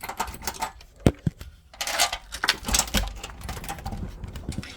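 Handling noise from a hand moving over the recording device: a string of clicks and knocks, a sharp knock about a second in, then a burst of rubbing and rustling against the microphone.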